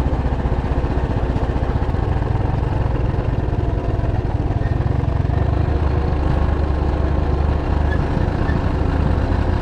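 Motorcycle engine running steadily while riding, a dense low rumble of rapid even firing pulses.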